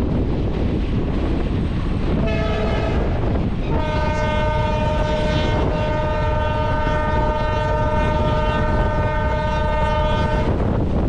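Train's multi-tone air horn sounding over the rumble of the moving train and wind at the window: a short blast about two seconds in, then a long blast of about seven seconds that stops near the end.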